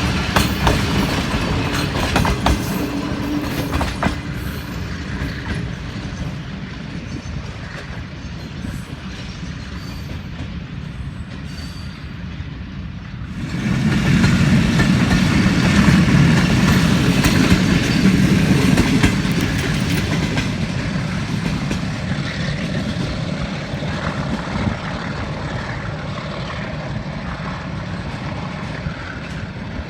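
A passenger train running on the rails, its wheels clicking over the rail joints. About thirteen seconds in, a louder low rumble sets in suddenly and then slowly fades.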